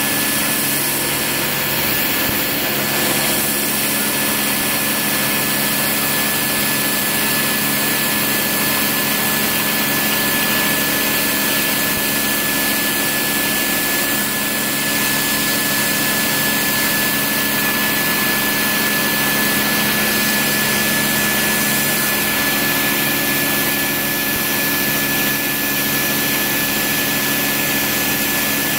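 CNC milling machine running a small end mill through the stock, a steady machining noise with a constant high whine from the spindle.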